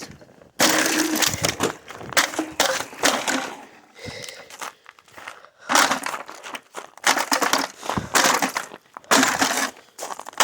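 Repeated smashing and crunching of broken plastic-and-metal appliance parts, a run of about six or seven loud, harsh crashes with short gaps between them.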